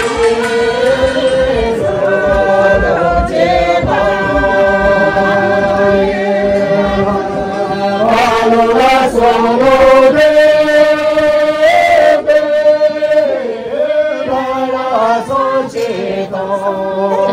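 A group of voices singing a dance song together, unaccompanied, holding long notes and stepping between pitches, with low thuds in the first few seconds.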